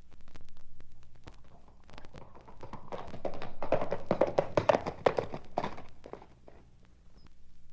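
A rapid run of sharp taps and knocks, thickest and loudest in the middle seconds, then thinning out.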